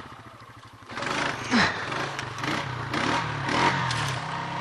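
Riding lawn mower engine running, low and quiet for about the first second, then louder and steady, with intermittent rattling bursts over it.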